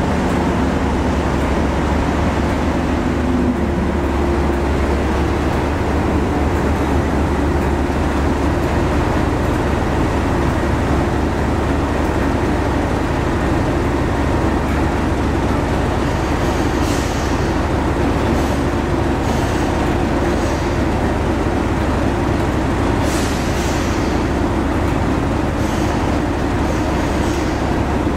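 Class 37 diesel locomotive's English Electric V12 engine idling steadily. Short high hisses come and go over the second half.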